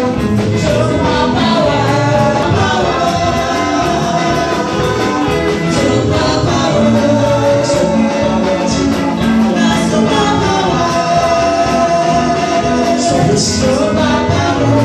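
Gospel praise music with singing over a band, with percussion keeping a steady beat.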